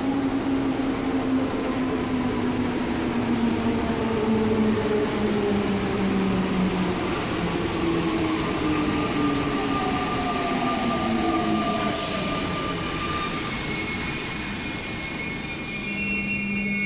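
NS-93 rubber-tyred metro train's traction motors whining, several tones falling in pitch over the first seven seconds as it slows, then new tones rising from about eight seconds in as a train picks up speed, with high-pitched tones near the end.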